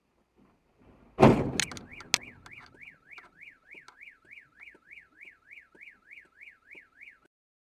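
A low-speed collision with a box van: one heavy crunch followed by a couple of sharp clacks. A car alarm then sets off, its tone sweeping up and down about three times a second, and cuts off near the end.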